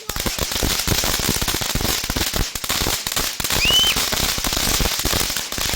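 Toxic Barrel Fountain ground firework crackling: a dense, rapid stream of pops and crackles, with a short whistle-like tone about three and a half seconds in. The crackling stops abruptly near the end.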